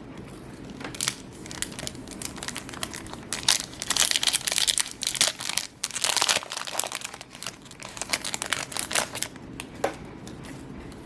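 Yu-Gi-Oh! booster pack's foil wrapper being crinkled and torn open, a dense run of sharp crackles thickest in the middle.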